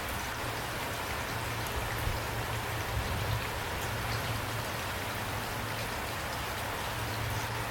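Steady rain falling, with scattered single drops ticking on a surface and a low steady rumble underneath.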